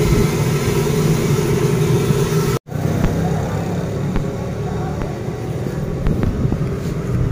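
Steady low mechanical hum, like a motor running, broken by a momentary dropout about two and a half seconds in.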